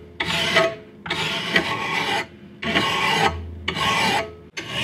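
A hand file scraping along the cutting edge of a steel lawn mower blade clamped in a vise, in about four strokes, each pushed one way only. The blade is being sharpened along its factory bevel.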